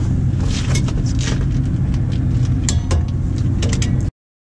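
Steady low outdoor rumble with a few light clicks and taps scattered through it; the sound cuts off suddenly about four seconds in.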